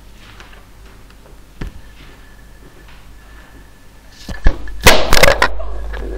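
Something falls and clatters: a burst of loud knocks and rattling about four seconds in, after which a steady low hum is louder than before. A single light click comes a little earlier.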